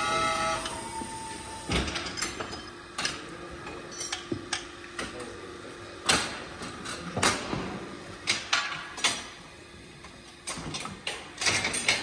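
Electric motor of a cattle hoof-trimming chute running with a steady whine that cuts off about two seconds in. Then irregular metal clanks and knocks of the chute's frame and gates as the cow is let out.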